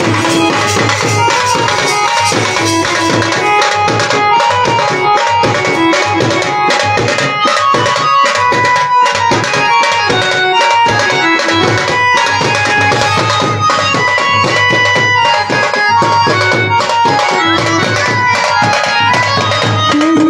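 Desi band baja music: an Indian banjo plays a sustained melody over fast, dense drumming on shoulder-slung side drums beaten with sticks, with metal hand cymbals clashing.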